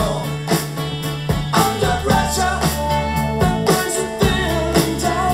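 Rock song with singing, guitar, steady bass and an even drum beat, played back on a Riva Festival wireless multiroom speaker as a listening test.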